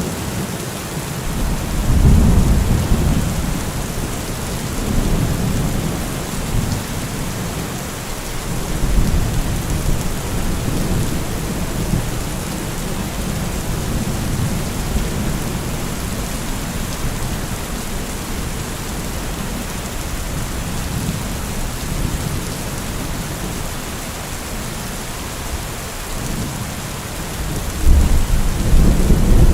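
Heavy rain falling steadily, a dense even hiss, with a low rumble that swells up a few times, most strongly about two seconds in and again near the end.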